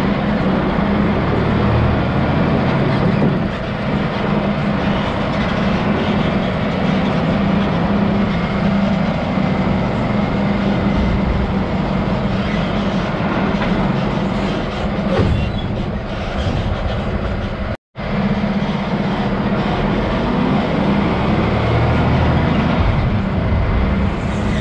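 Log truck's diesel engine and road noise running steadily as the truck rolls off the scale onto a gravel road, heard from outside the cab. It cuts out for an instant about two-thirds of the way through.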